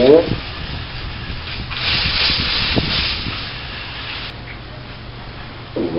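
A fake fart noise blown with the mouth: a raspy, sputtering hiss lasting about a second and a half, with a few sharp splutters.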